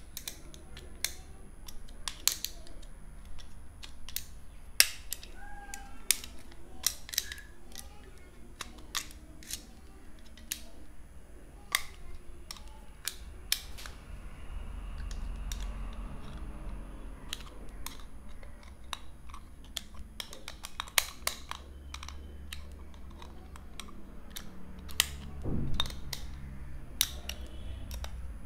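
Irregular sharp metallic clicks and light scraping as a steel blade tip, used as a makeshift screwdriver, works at the brass screw in the metal body of a Stanley 99E utility knife.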